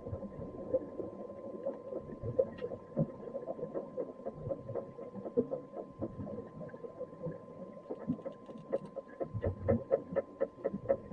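Muffled underwater crackling and popping over a steady electrical hum. The pops come faster and louder from about eight seconds in.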